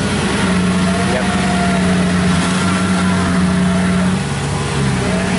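Diesel engine of a tracked rice-field machine running hard under load as it tugs a combine harvester bogged in mud, its note sagging briefly near the end before picking up again.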